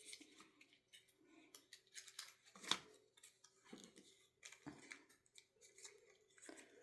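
Faint scratching, rustling and clicks of hands working at a phone's cardboard box and its paper wrapping, with one sharper click a little under three seconds in.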